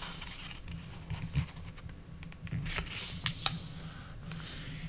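A sheet of origami paper sliding and rubbing under fingers on a tabletop as a corner is folded in, with a few soft clicks of the paper.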